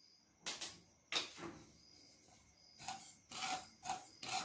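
A wooden spatula scraping and stirring poppy seeds being dry-roasted in a non-stick kadhai. Two separate scrapes come in the first second or so, then a quicker run of repeated stirring strokes from about three seconds in.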